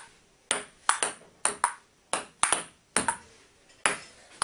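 Ping pong rally: the ball clicks sharply against the table and the paddles in a steady run of about two clicks a second, some in quick bounce-and-hit pairs.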